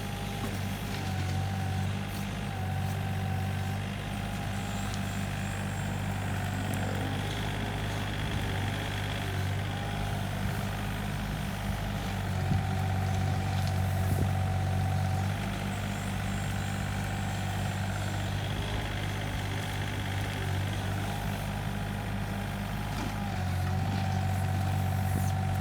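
Komatsu PC28UU-2 mini excavator's diesel engine running steadily under a digging test, growing louder three times as it takes load, with a steady, slightly wavering whine above it.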